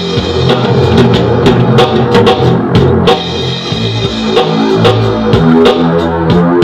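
Loud live electronic music jam: a bassline stepping between notes over a drum beat with sharp percussive hits, played on a keyboard and DJ turntable-and-mixer setup. Picked up by a small digital camera's built-in microphone rather than a direct line-in.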